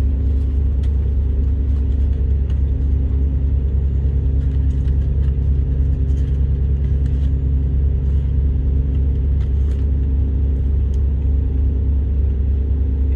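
Steady low hum of a vehicle's engine idling, heard from inside the cab, with faint chewing and paper-wrapper rustles over it.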